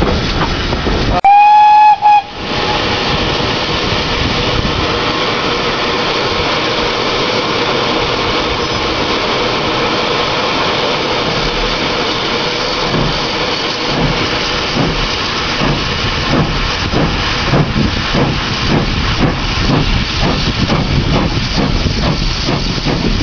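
GWR pannier tank steam locomotive sounding one short, loud whistle blast about a second in, followed by a steady hiss of steam and the rushing noise of the train under way. A rhythmic beat comes through the running noise in the second half.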